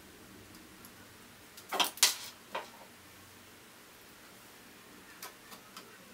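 Three sharp clicks about two seconds in, then a few fainter ticks near the end, as the PCB control board is pressed into place in a Brother PR620 embroidery machine.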